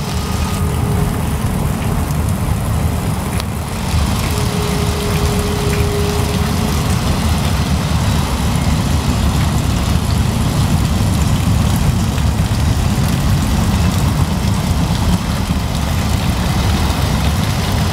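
Freight train of tank cars and tank containers passing close by, a steady low rumble of wheels on rails that goes on unbroken.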